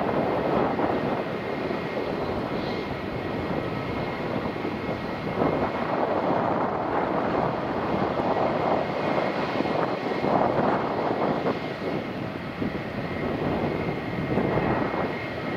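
Airbus A320-232's twin IAE V2500 turbofan engines on final approach, a continuous rushing rumble heard from a distance that wavers a little in loudness, with a faint steady high whine.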